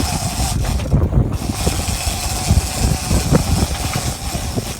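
Boat engine running steadily with a constant whine, under heavy wind buffeting on the microphone and a hiss; the hiss briefly drops away about a second in.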